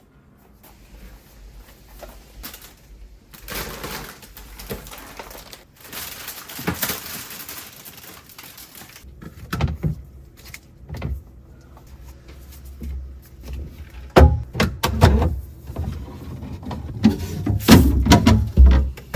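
Household items being handled while a refrigerator is cleaned. A couple of stretches of rustling or wiping noise come first, then a series of knocks and thumps, the loudest near the end.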